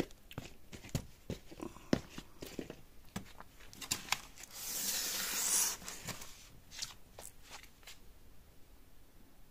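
A cardboard appliance box bound with plastic straps being handled, with scattered clicks and knocks. Near the middle comes a tearing sound lasting about a second and a half, the loudest part.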